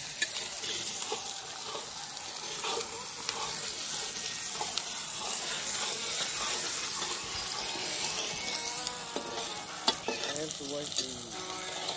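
Pork sizzling steadily in hot oil in a large kadai (wok) over a wood fire, with a long metal spatula stirring and scraping through it, giving faint scattered ticks over the hiss.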